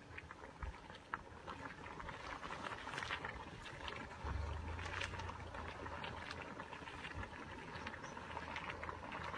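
Steaming geothermal pool boiling, with a steady hiss and many small irregular pops and crackles. Low wind rumble on the microphone grows about four seconds in.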